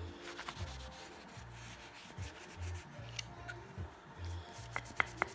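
Hand buffing cabinet makers' wax into a wooden Disston saw handle, a steady rubbing with a few sharp clicks near the end, over background music with a repeating bass line.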